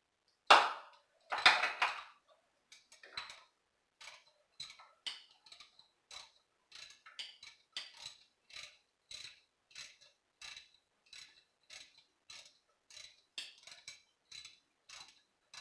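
Two loud metallic clanks, then a socket ratchet clicking steadily at about three strokes a second as a bolt is turned.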